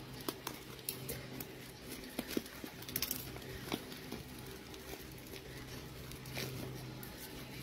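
Scissors snipping and plastic parcel wrapping crinkling as a courier package is cut open by hand: a scatter of small clicks and rustles, busiest about two to three seconds in, over a low steady hum.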